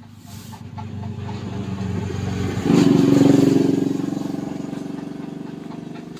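A motor vehicle passing by: its engine grows louder to a peak about three seconds in, then fades away.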